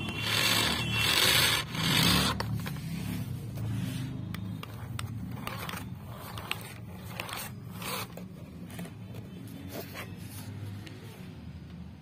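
Toy remote-control car's small electric motor and plastic gears whirring in on-and-off bursts as it is driven, loudest in the first two seconds.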